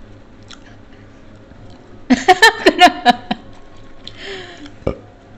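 A short burst of laughter, a quick run of pulses about two seconds in, over faint eating sounds, then a single dull thump near the end.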